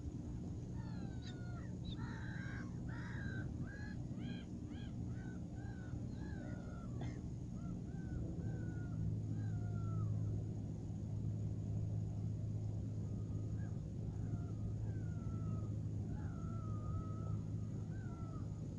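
Gulls calling, a long run of short, falling cries one after another. Under them is a steady low hum that gets louder about halfway through.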